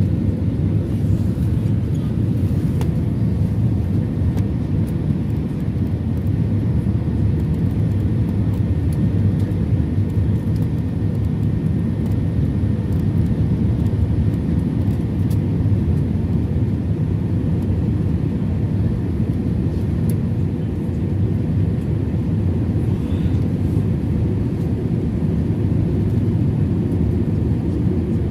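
Jet airliner cabin noise: a steady low rumble of engines and airflow heard from inside the passenger cabin.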